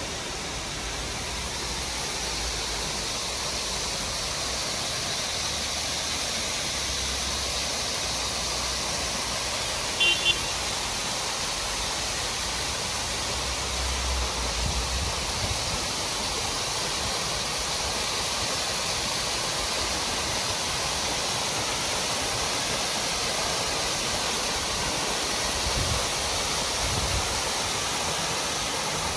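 Waterfall cascading down a rock face into a pool: a steady rushing hiss of falling water. Two short high-pitched chirps break through about ten seconds in.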